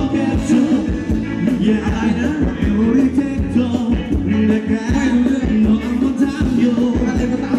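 Live Thai ramwong dance band playing amplified, with a steady drum beat, bass and a singer's voice.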